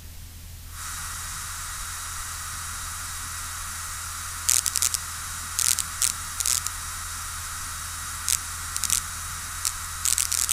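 Aircraft radio and intercom feed between transmissions: a steady static hiss over a low hum, coming up about a second in. Short crackles break through from about halfway, more often near the end.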